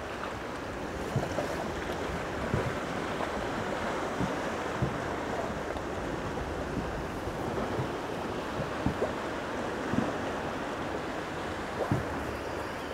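Sea water lapping against the hull of a small boat, with small irregular slaps, under a steady wash of wind on the microphone.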